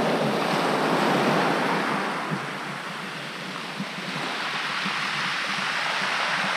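Sea surf washing up and drawing back on a shingle beach, a steady rush that is loudest at first, eases about halfway, then builds a little again.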